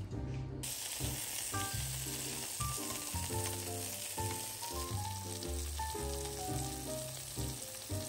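Eggplant strips sizzling as they fry in hot oil in a nonstick pan, the hiss starting about half a second in. Background music with a light melody plays along.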